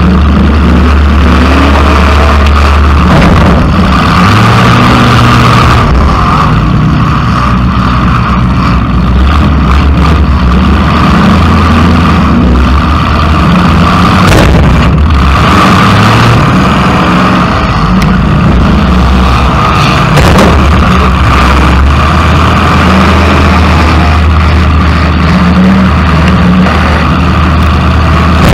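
Demolition derby car engine running loud through open, straight-up exhaust stacks, revving up and down. There are a few sharp knocks about halfway through.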